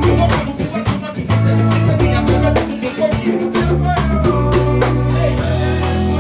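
A live band playing: drum kit keeping a steady beat, with electric guitars, keyboard and low held bass notes.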